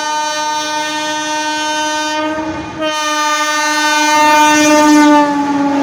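Air horn of an approaching Indian Railways electric locomotive sounding two long, loud blasts with a short break between them. The second blast drops slightly in pitch near the end.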